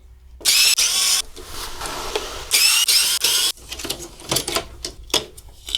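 Electric screwdriver running in two bursts of about a second each, with a whine that shifts in pitch, backing screws out of the unit's casing during disassembly. After the bursts come a few lighter clicks and handling sounds.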